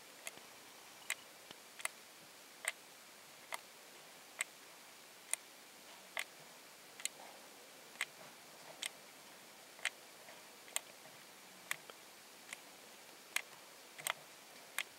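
Button clicks on a Shooting Chrony chronograph, pressed about once a second to step through the stored readings of the individual shots. The clicks are faint, sharp and evenly spaced.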